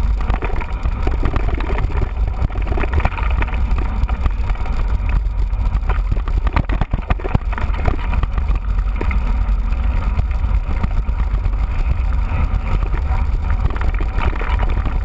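Wind buffeting the camera microphone, with a steady deep rumble, as a mountain bike rides along a trail.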